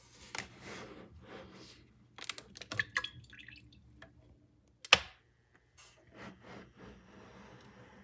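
Aroma electric kettle being handled: lifted by its handle and set back on its base, with irregular knocks, rubbing and clicks, and one sharp click about five seconds in that is the loudest sound.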